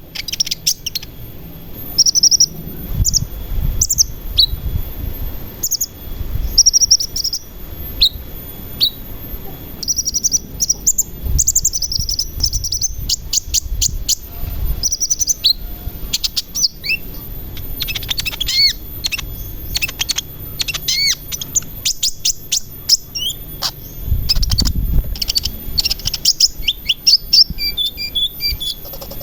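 Sunbird song: quick runs of high-pitched chirps and thin trills, repeated in short bursts throughout, with a low rumble beneath now and then.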